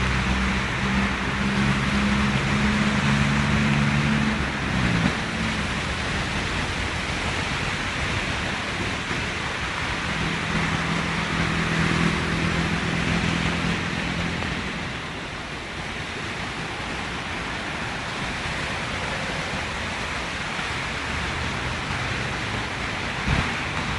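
Steady rain falling, a continuous even hiss. A low humming tone sounds over it for the first few seconds, slides down and stops, then comes back for a few seconds in the middle.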